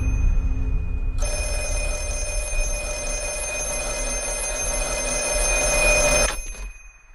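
A telephone bell ringing: one long steady ring that starts about a second in and stops shortly before the end. A low rumbling drone runs underneath.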